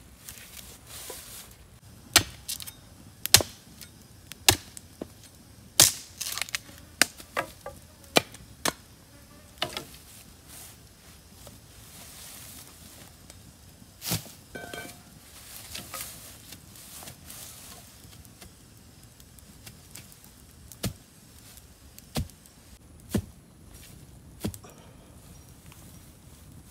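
Machete chopping thin wooden sticks: about a dozen sharp chops in quick, irregular succession over the first ten seconds, then a handful of single knocks spaced a second or more apart in the second half. Insects buzz steadily underneath.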